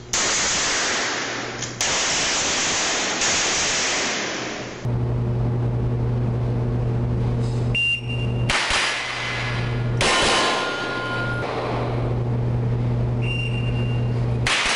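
Rapid gunfire from an AR-style rifle in an indoor range, the camera's overloaded audio smearing the shots and their echo into one dense noise. Later a short shot-timer beep sounds twice, each followed by more shots, over a steady electrical hum from the camera.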